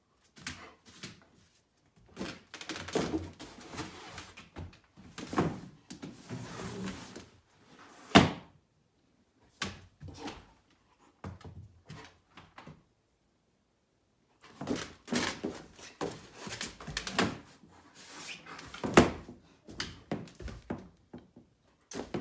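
Irregular knocks, thuds and scuffs from a large dog moving about on a hardwood floor and pushing at a raised dog cot, its frame knocking. There is a sharp knock about eight seconds in, a quiet pause around the middle, and another sharp knock near the end.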